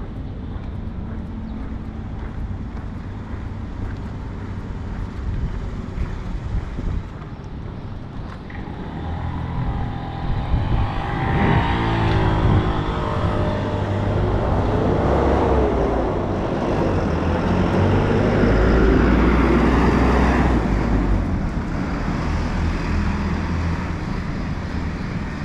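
Street traffic: a motor vehicle running close by, its engine rumble swelling louder through the middle and easing off near the end.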